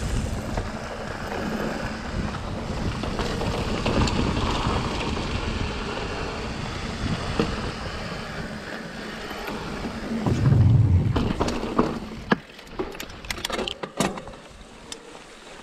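Ibis Ripmo AF mountain bike rolling fast down a dirt trail: a steady rush of tyre and riding noise with rattle from the bike over bumps. About ten seconds in there is one heavy low thump, and after that the riding noise drops to quieter scattered clicks and ticks as the bike slows.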